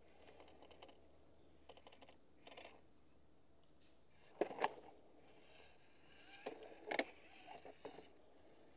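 Small 1/18-scale RC rock crawler clambering over sandstone: faint clicking clatter from its tires and plastic chassis on the rock, with sharper knocks about four and a half and seven seconds in as it drops over ledges.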